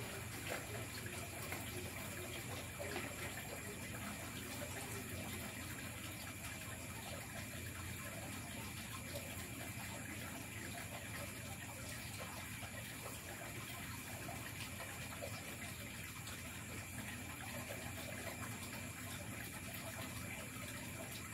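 Steady night forest ambience: insects trilling on several constant high pitches over an even, continuous rushing hiss, with a few faint knocks in the first seconds.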